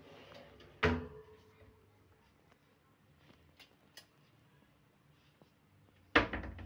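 Kitchen cabinet drawers with pull-out steel wire baskets being pushed shut: a sharp bang with a brief metallic ring about a second in, a few faint clicks, then a second, louder bang near the end.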